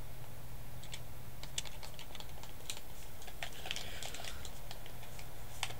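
Buttons of a handheld game controller clicking irregularly as it is worked by hand, over a low steady hum.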